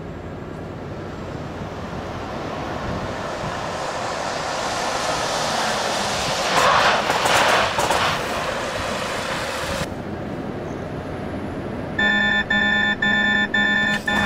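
Volvo FH truck and a car approaching and passing close on a wet track, tyre and engine noise building to a peak about seven seconds in, then cut off. From about twelve seconds, the truck's collision warning sounding in the cab, a loud electronic tone beeping rapidly and repeatedly, warning that a collision is about to happen.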